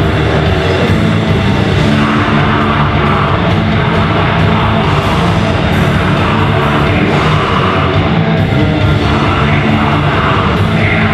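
Live heavy rock band playing loud, with distorted guitars, bass and drums, recorded from the audience.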